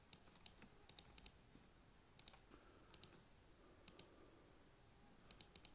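Near silence with faint, irregular small clicks, some in quick pairs or triplets, about once a second.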